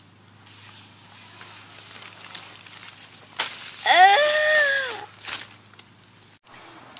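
Nylon tent fabric rustling as the door flap is handled, with a child's short voiced cry about four seconds in, rising and then falling in pitch.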